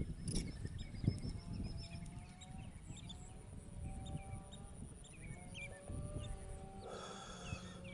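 A flock of birds calling together: many short overlapping chirps and some longer held whistles, with a louder, harsher call about seven seconds in, over a steady low rumble.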